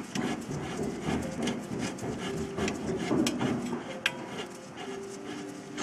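Irregular metallic clicks, knocks and scraping as a brake caliper bracket and its bolts are handled and fitted by hand.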